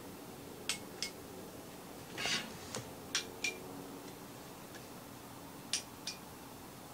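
Small sharp clicks in three pairs, a couple of seconds apart, as the push switches in the caps of hanging glass light-bulb terrarium lamps are pressed to turn them on; some clicks carry a brief glassy ring. A short rustle comes just after the first pair.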